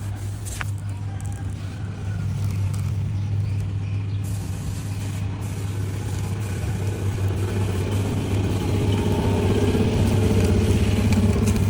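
A machine or engine running with a steady low hum, growing somewhat louder in the second half.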